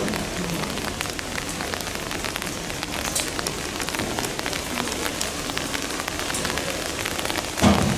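Steady rain falling, with many separate drops ticking as they land. A louder thud comes near the end.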